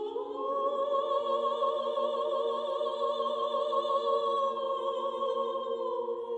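Solo singing voice in an Armenian hymn: the voice rises into one long held note with vibrato over a steady drone, and steps down near the end.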